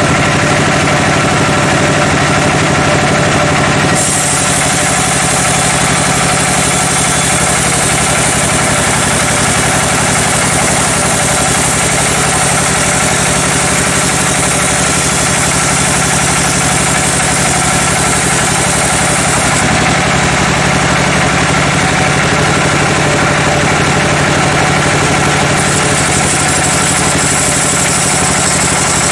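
Band sawmill running with a steady machine hum, its bandsaw blade cutting a teak log: a high hiss from the cut comes in about four seconds in and stops a few seconds before the midpoint of the second half, then returns briefly near the end.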